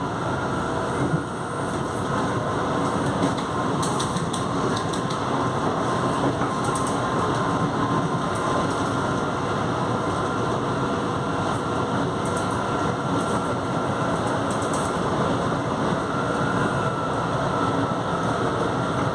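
São Paulo Metro G-fleet (Alstom) subway train heard from inside the car while running between stations. There is a steady growl from the traction motors, with a constant whine over the rumble of the wheels and a few faint ticks.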